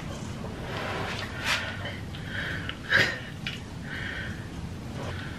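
Several noisy breaths and snorts through nasal breathing masks, with the loudest and sharpest one about three seconds in.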